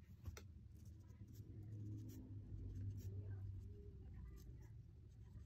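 Faint taps and scratches of a marker tip on paper as small areas are coloured in, a few sharp ticks among them, over a low steady hum.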